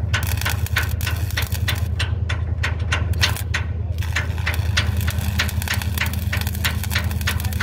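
Overhead stick (electrode) arc welding on a steel hull: the arc crackles with rapid sharp pops, briefly dropping out between about two and four seconds in before crackling steadily again, over a steady low machine hum.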